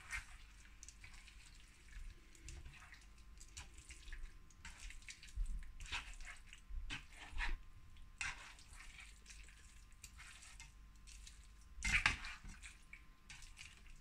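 Spoon stirring and scraping chicken pieces in a wet curry sauce in a non-stick frying pan, with irregular wet clicks and knocks. A louder scrape comes about twelve seconds in.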